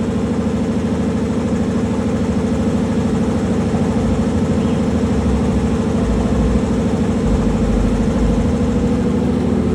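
Semi truck's diesel engine idling steadily, with a deeper low rumble swelling in from about four seconds in and fading near the end.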